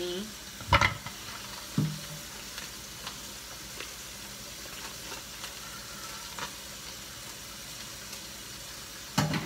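Steady hiss of a kitchen tap running over frozen cod fillets in the sink, with green peppers and onion sizzling in olive oil on a skillet. A sharp knock comes about a second in, a softer one a second later, and a clunk near the end.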